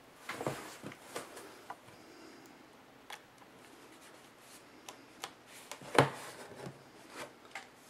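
Small clicks and rustles of a tablet being handled as a USB cable is plugged into its charging port, with one sharper click about six seconds in.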